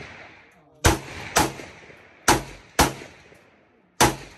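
Gunshots at a shooting range: five shots, two pairs about half a second apart and then a single one near the end, each trailing off in an echo.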